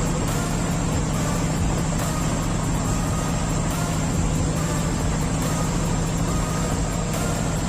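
A pilot boat's diesel engines running steadily, a constant low drone that holds even throughout.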